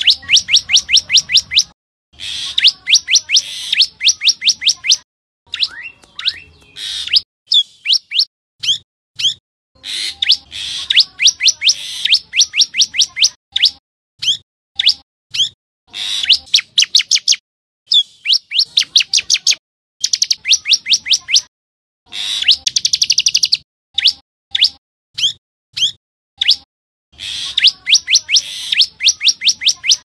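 Common tailorbird singing: runs of sharp, high, rapidly repeated notes, about seven a second, each run lasting a second or two with short pauses between.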